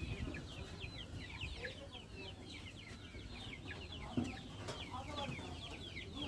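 Chickens calling in a coop: a steady chatter of many short, high, falling peeps overlapping several times a second, with a louder thump about four seconds in.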